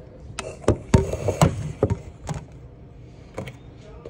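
Kitchen items being handled on a counter: a quick run of sharp knocks and clicks, as of a plastic cup being moved and set down, then one more knock about three and a half seconds in.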